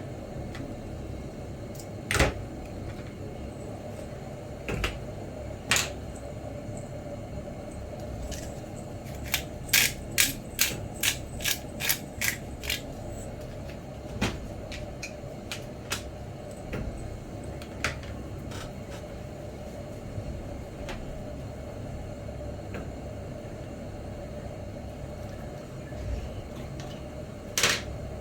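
Sharp clicks and taps of small hard objects, scattered but with a quick run of about eight in the middle, over a steady low hum.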